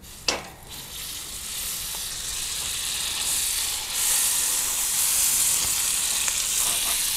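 Butter and bacon fat sizzling on a hot plancha griddle. A short knock sounds near the start as the butter goes down. The sizzle then grows and is loudest from about four seconds in, as brioche bun halves are pressed cut-side down into the fat to toast.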